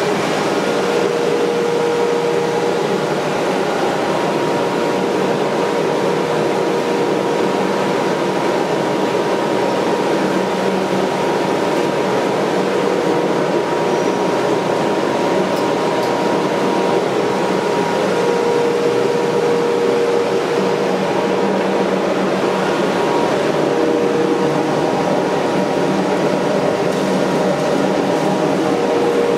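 Vertical band saw running idle with no wood being cut: an even mechanical whir with a constant mid-pitched hum.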